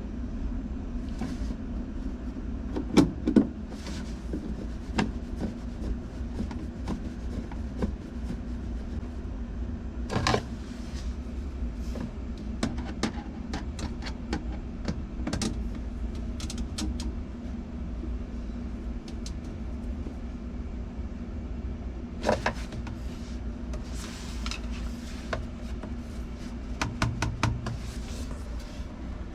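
Steady low hum with scattered clicks and knocks, the loudest about three seconds in and again about ten seconds in.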